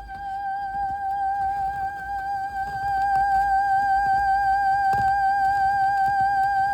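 Arturia MatrixBrute analog synthesizer holding one note that wavers slightly in pitch, over a fluctuating low rumble with a few faint clicks; the note gets louder about three seconds in. The rumble and clicks are the kind of VCA noise fault being demonstrated.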